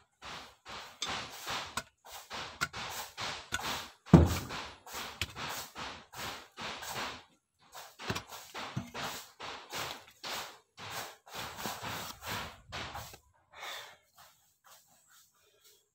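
A mattock striking and scraping into packed earth, about two blows a second, with loosened soil crumbling. The heaviest thud comes about four seconds in, and the blows stop a couple of seconds before the end.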